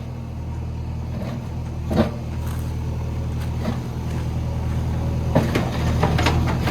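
JCB 3DX backhoe loader's diesel engine running steadily and growing slowly louder, with a sharp knock about two seconds in and several more knocks near the end.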